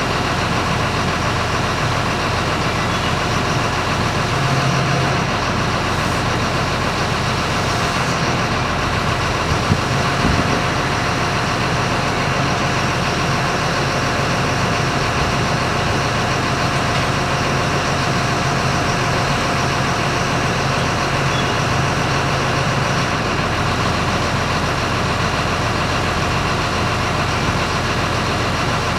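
Engine running at a steady idle, with a faint knock about ten seconds in.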